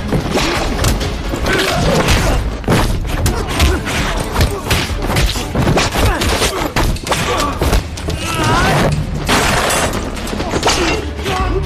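Action-film chase soundtrack: loud music with repeated thuds and booms, and shouting voices.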